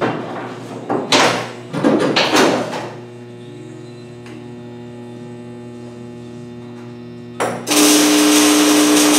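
Steel tube posts being handled and set in place, scraping and clanking several times in the first few seconds, over a steady electrical hum. Near the end an electric welding arc strikes and runs as a loud, steady hiss with a hum in it, tack-welding a vertical steel post onto the dump body frame.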